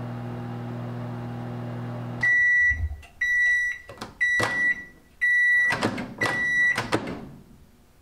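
Emerson countertop microwave humming steadily while it runs, stopping about two seconds in as the timer hits zero, then sounding its end-of-cycle alert: five loud, high-pitched beeps, each about half a second, about one a second. Clicks and knocks from the door handle come between the beeps.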